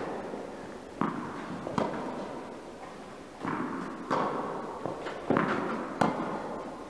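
A tennis rally: about six sharp knocks of racket strikes and ball bounces, unevenly spaced, each ringing out in the echo of an indoor tennis hall.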